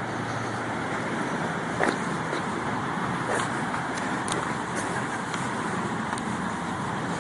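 Steady road traffic noise of cars driving along a street, with a few light sharp taps, the strongest about two seconds in.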